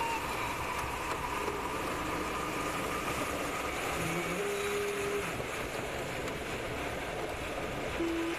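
Steady rush of airflow over a glider's canopy in flight, with the glider's audio variometer giving short steady tones that jump between pitches now and then.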